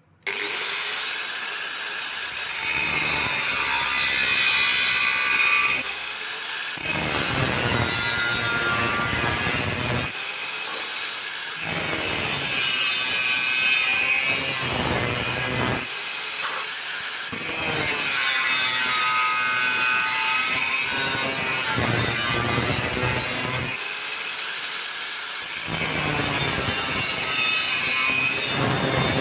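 Angle grinder with an abrasive cutting disc, switched on right at the start and cutting through galvanized square hollow steel tube. The steady grinding and cutting noise carries a high motor whine that rises and dips in pitch several times as the disc is worked through the cut.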